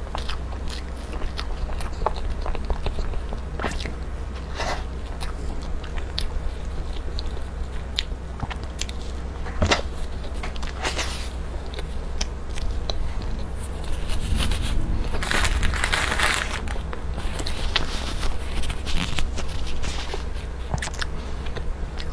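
Close-miked mouth sounds of eating a matcha cake: chewing with many short wet clicks and lip smacks, then licking cake off gloved fingers. A longer rustling stretch comes about two-thirds of the way through, over a steady low hum.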